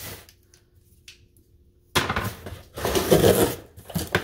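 Cardboard package being torn open and handled: after a couple of seconds of near quiet, a sudden rough tearing, scraping and rustling begins about halfway through, with scattered sharp clicks.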